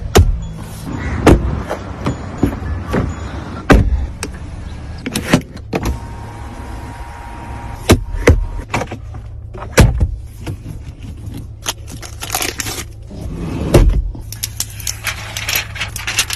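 Mahindra XUV700 making a long series of sharp clicks and knocks, some close together and some a second or more apart, over a steady low hum.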